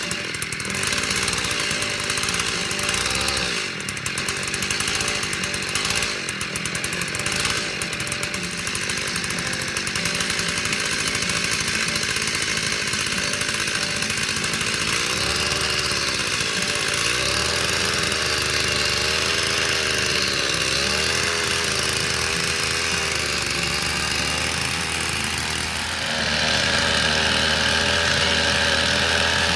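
Small gas tiller engine running steadily as it drives dethatcher tines through lawn grass, getting louder about four seconds before the end.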